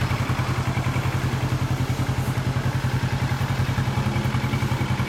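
2014 Kawasaki Ninja 400's parallel-twin engine idling steadily through a Sansei Racing aftermarket muffler, a low, evenly pulsing note; the muffler sounds much like the stock one.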